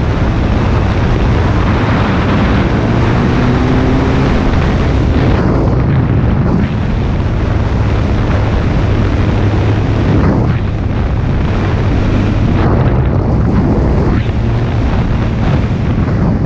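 Heavy wind noise buffeting the GoPro's microphone on a moving sport motorcycle, with the engine running steadily underneath.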